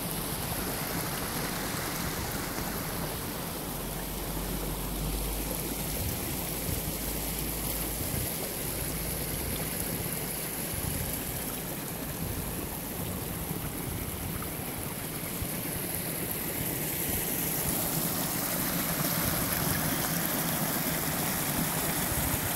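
Small snowmelt stream rushing over the forest floor: a steady rush of running water that grows a little louder near the end.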